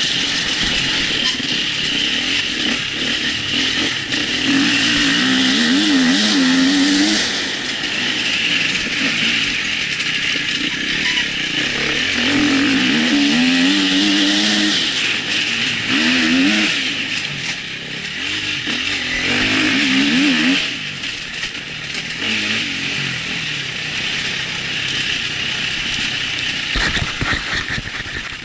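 Husqvarna enduro motorcycle engine being ridden hard, its pitch rising and falling quickly in several spells as the throttle is worked, over a constant hiss of wind and trail noise on the onboard camera. The sound fades out right at the end.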